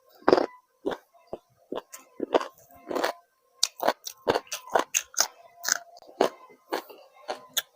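Close-up eating: a person biting and chewing crunchy food, a dense irregular run of sharp crunches mixed with wetter chewing.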